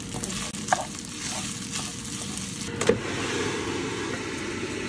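Food sizzling in hot oil while a wooden spoon stirs it, first rice frying in a pan for pilav, with light scrapes and taps of the spoon. A sharp knock comes about three seconds in, after which the sizzle is denser and steadier.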